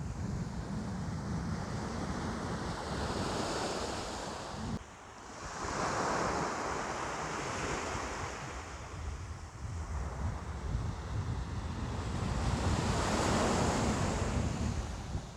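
Ocean waves breaking and washing in: a continuous rush of surf that swells twice, with a constant low rumble of wind on the microphone underneath.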